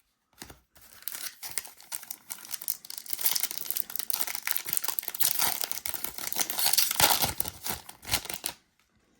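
Foil trading-card pack wrapper being torn open and crinkled by hand, a dense crackling that starts about a second in and stops shortly before the end.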